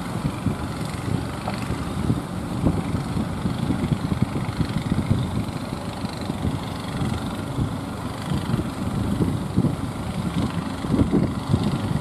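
Engines of wooden outrigger fishing boats running as the boats push out through the surf: a steady low chugging under the noisy wash of breaking waves.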